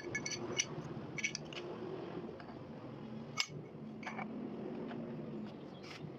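Light clicks and clinks of small metal parts being handled on a bench, one sharper click about three and a half seconds in, over a low steady hum.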